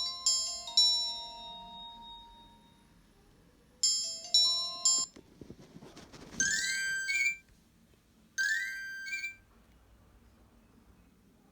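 Nokia 1650 mobile phone playing ringtone previews through its loudspeaker: a bell-like melody dies away, a second tune starts and is cut off after about a second, then a short rising jingle plays twice, about two seconds apart.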